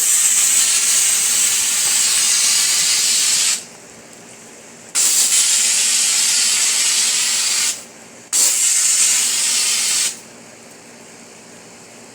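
Pressure washer spray gun with an X-Jet nozzle, tip off, shooting a high stream of softwash solution: three hissing bursts of a few seconds each as the trigger is squeezed and released, with a steady lower hum between.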